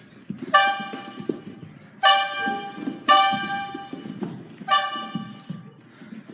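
A brassy horn sounding four blasts at about the same pitch, each half a second to a second long, over a low murmur of room noise.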